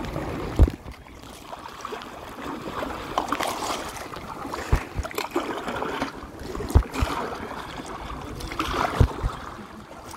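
Water splashing and trickling around a kayak as it is paddled, swelling and fading with the strokes, with a dull thump every couple of seconds.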